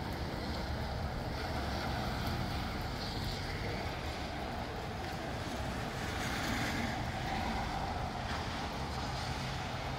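Steady wind and rain noise, with low wind rumble buffeting the microphone; it swells a little about six seconds in.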